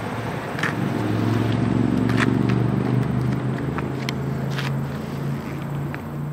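2014 Yamaha YZF-R6's inline-four engine idling steadily through its GYTR carbon slip-on exhaust, with a few light ticks.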